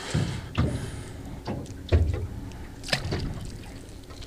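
Water lapping against a small boat's hull, with a few irregular dull knocks and thuds.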